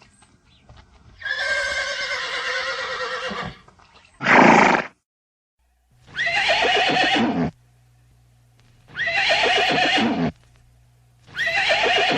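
Horse whinnying. A long wavering whinny comes first, then a short, loud call about four seconds in. The same falling whinny then repeats three times, about three seconds apart, with a low electrical hum under each repeat.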